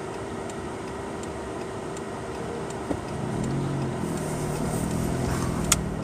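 Car engine idling, heard from inside the cabin, with a faint regular tick about twice a second. About halfway through, the engine note rises as the car pulls away, with a knock at the start of that and a sharp click near the end.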